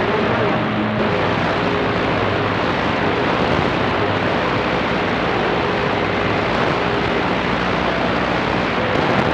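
CB radio receiver hissing with skip static between transmissions, a few faint steady whistling tones from distant carriers under the noise.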